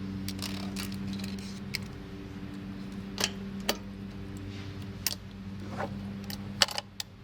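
Scattered metallic clicks and knocks from an old Nobles SpeeDry floor vacuum being pushed and jostled, its front gasket dragging on the floor and stopping it. A steady low hum sits underneath and drops away near the end.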